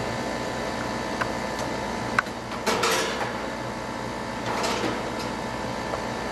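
Outdoor air-conditioning condensing unit running with a steady hum, over which come a few small clicks and two brief scraping rustles from handling the protective cap on the low side service port.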